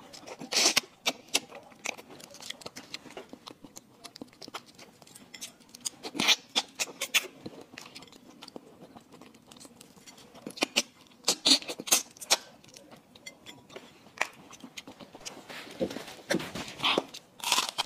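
Close-miked mouth sounds of eating raw marinated mantis shrimp: wet sucking, smacking and chewing in scattered short bursts, with quieter stretches between.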